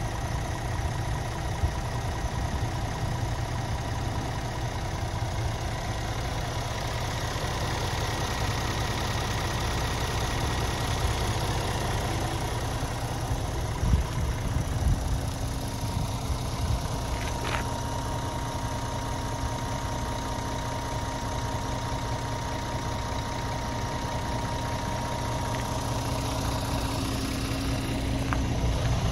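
Scania R450's 13-litre straight-six diesel engine idling steadily, with a brief click about halfway through.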